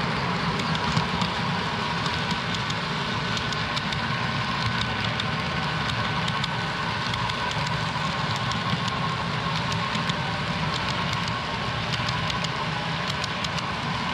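HO-scale model freight cars rolling along the track: a steady rolling rumble with scattered sharp clicks from the wheels over the rails, and a faint steady whine underneath.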